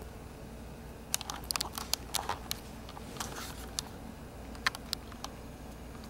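Chihuahua puppies play-biting, their mouths and paws making a scatter of small sharp clicks and snaps in two flurries, the first starting about a second in and a shorter one near five seconds.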